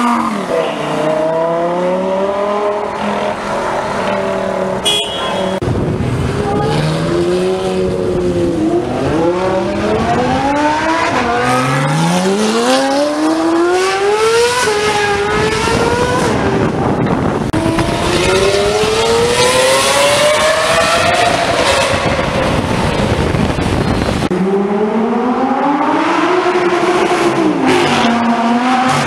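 Several supercar engines, among them a Lamborghini Gallardo's V10, revving hard as the cars accelerate past one after another. Each engine note climbs in pitch and falls again many times.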